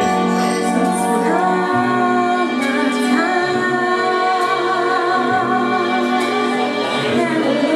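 A woman singing a slow melody into a microphone over keyboard accompaniment with sustained chords, performed live.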